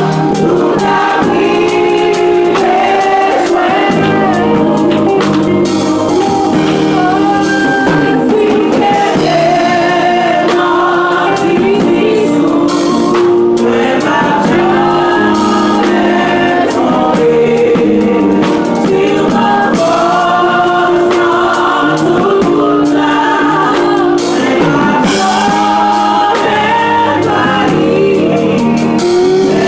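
Gospel music with a choir singing several melody lines over percussion.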